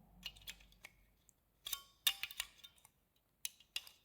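Faulty EU plug adapter with a poor connection being worked by hand: a string of sharp, irregular clicks and crackles, thickest about halfway through.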